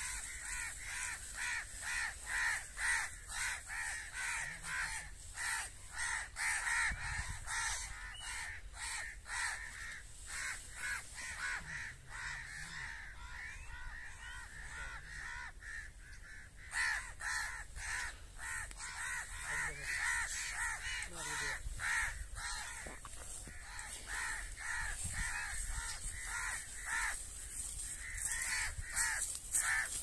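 Crows cawing over and over, many calls in quick succession, easing off for a few seconds around halfway and then picking up again.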